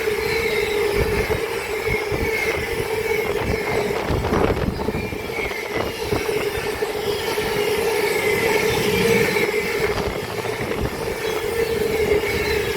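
Freight train hauled by a Class 66 diesel passing at speed, its wheels rumbling with frequent low knocks and a steady ringing tone held throughout.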